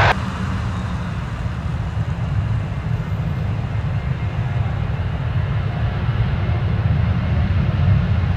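Low, steady jet-engine rumble from a Ryanair Boeing 737 moving along the runway, heard from a distance and growing slightly louder near the end. At the very start a louder, sharper jet noise cuts off abruptly.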